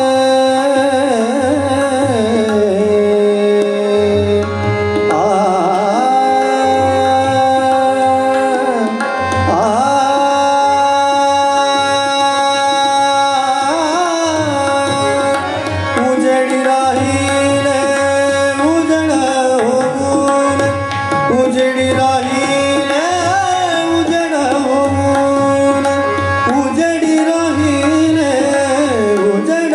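Indian classical male voice singing a Marathi abhang in long, gliding, ornamented lines, accompanied by harmonium, tabla and tanpura drone. The tabla plays a steady rhythmic pattern under the held harmonium and drone notes.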